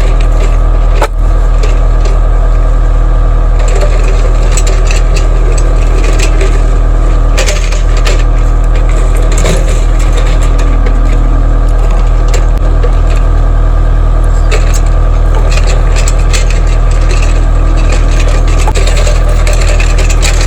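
Cat 249D compact track loader's diesel engine running steadily, with frequent short knocks and rattles from the machine working.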